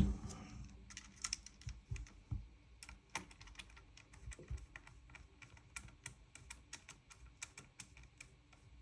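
Many light, irregular clicks and taps of small gun parts being handled and fitted together during reassembly of a gas-blowback airsoft rifle.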